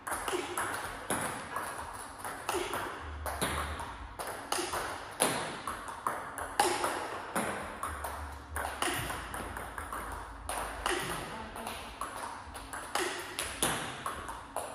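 Table tennis ball being hit back and forth in a practice rally: sharp clicks of celluloid-type plastic ball on rubber bats and on the table, about two a second.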